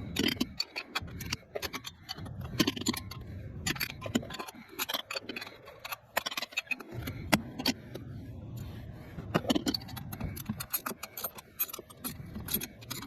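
Irregular metallic clicks, clinks and scrapes of hand tools and hardware being handled while working on the engine.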